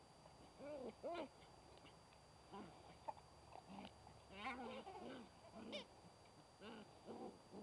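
Puppies giving short, faint yips and whiny calls as they play, each call rising and falling in pitch, a dozen or so scattered irregularly with a denser cluster about four to six seconds in.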